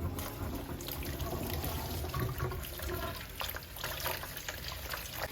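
Running or pouring water, with scattered light clinks and knocks throughout.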